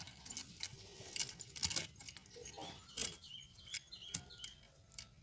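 Scattered light metallic clicks and rattles of a chainsaw's saw chain being handled and seated onto the guide bar, the links clinking against the bar.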